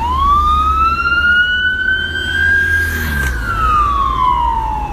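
An emergency vehicle siren sounding one slow wail: its pitch rises for about three seconds, holds briefly, then falls away. A low rumble of traffic runs underneath.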